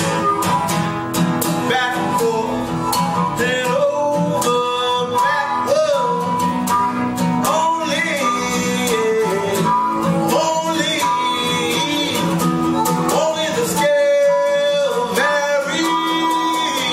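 Live acoustic band playing: an acoustic guitar strumming steadily under a harmonica playing a melody of held, bending notes.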